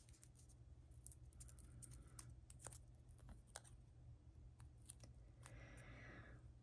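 Faint clicks and crackles of fingers handling a Color Street dry nail polish strip, peeling it off its backing, with a soft breathy hiss near the end.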